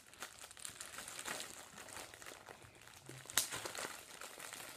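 Plastic packaging crinkling and rustling as a shirt is worked out of its bag, with one sharper crackle about three and a half seconds in.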